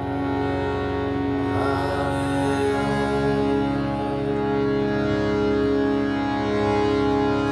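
Harmonium playing sustained, droning chords, with the chord changing about three seconds in; a sung note glides briefly near two seconds in.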